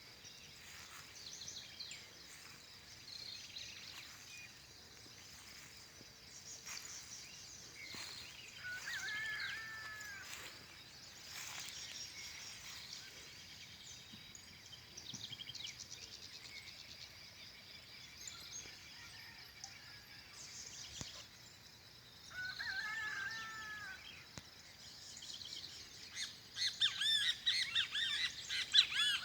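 Songbirds singing and calling, with short chirps and warbled phrases scattered throughout and a louder burst of rapid chirping near the end, over a faint steady high-pitched drone.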